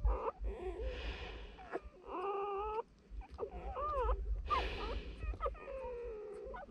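Newborn wolf pups squealing and whimpering in a string of short, high, wavering calls.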